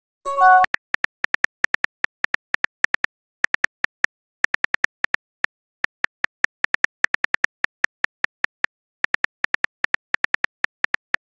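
Phone keyboard clicks of a chat app's typing sound effect, irregular taps several a second with brief pauses. A short chime of a few stepped notes sounds about half a second in as a message is sent.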